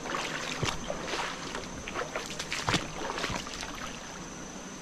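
Shallow creek water trickling, with many short irregular splashes and drips.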